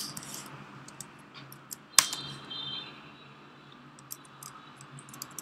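Scattered keystrokes on a computer keyboard as text is typed, with a sharper click about two seconds in and a run of light taps near the end.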